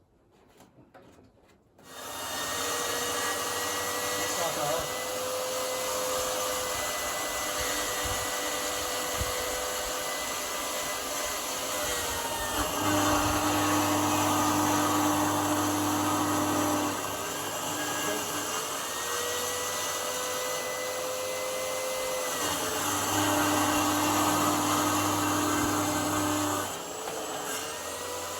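Electric saw motor starting up and running steadily through a heavy wooden board, its whine dropping in pitch and getting louder twice for a few seconds as the blade bites and labours, then picking back up.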